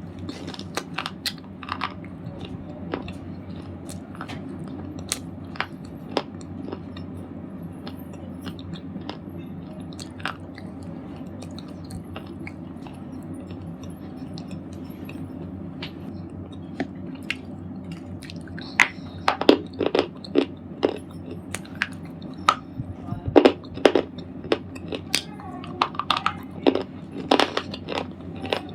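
Red slate ball being crunched: sharp brittle cracks and crackles, scattered at first, then denser and louder through the last third, over a steady low hum.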